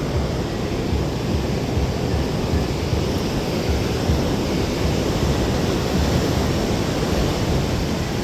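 Ocean surf washing in, with wind buffeting the microphone: a steady rush with gusty low rumbling.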